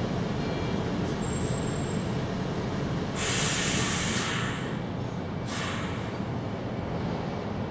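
A steady low rumbling noise, with a burst of hiss starting suddenly about three seconds in and lasting over a second, then a shorter one a second later.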